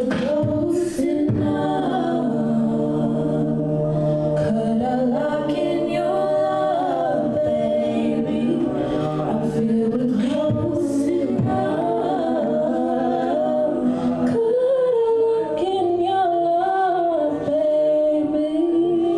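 A cappella group singing: several voices holding and moving between chords together over a low sung bass line, with no instruments.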